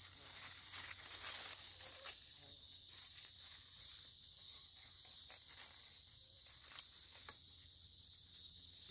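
Faint chorus of insects trilling, a high-pitched, steady pulsing drone, with a few soft ticks and rustles close by.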